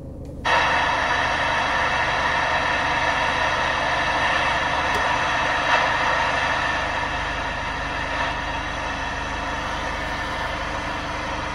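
CB radio speaker giving out a steady loud rush of static. It switches on abruptly about half a second in and cuts off abruptly near the end, over the low hum of the car on the road.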